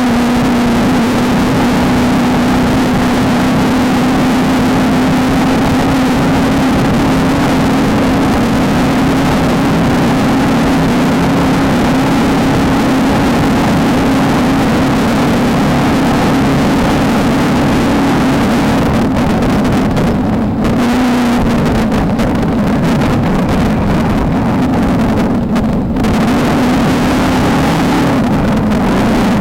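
Desert off-road race car's engine running hard at steady high revs, over a constant rush of wind and rough-terrain noise. The engine note eases briefly about two-thirds of the way through, then picks back up.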